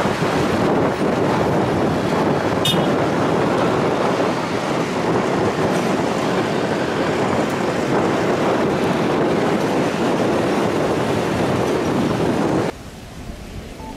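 Jet engines of a Boeing 787 airliner landing and rolling out on the runway: a loud, steady roar mixed with wind on the microphone, with one short high click about two and a half seconds in. The roar drops away abruptly near the end.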